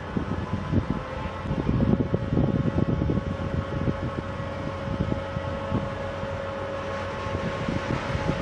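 Diesel locomotive hauling a freight train of flat wagons at low speed, with engine rumble and wheels clattering over the track. A steady whine joins about two seconds in and holds.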